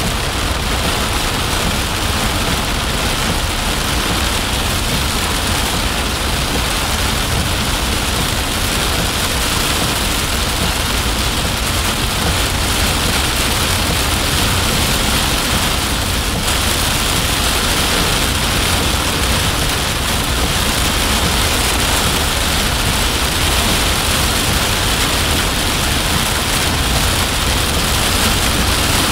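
Heavy rain pelting the roof and windshield of a moving car, heard from inside the cabin over a steady low rumble of road and tyre noise. The rain hiss holds steady throughout.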